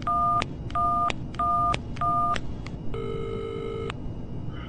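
Mobile phone being dialed: four identical touch-tone (DTMF) keypad beeps about two-thirds of a second apart. About three seconds in comes one ring of the ringback tone.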